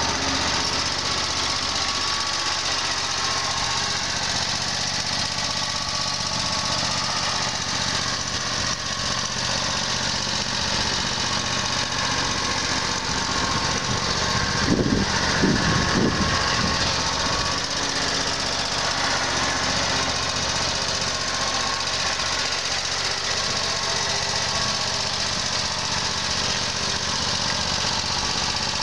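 2010 John Deere Z920A zero-turn mower's 26 HP Kawasaki V-twin gas engine running steadily as the mower drives. About halfway through, a louder low rumble comes for a couple of seconds.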